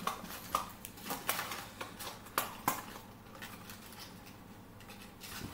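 Small cardboard product boxes being handled and taken out of a shipping carton: a few crisp knocks and rustles in the first three seconds, then quieter handling.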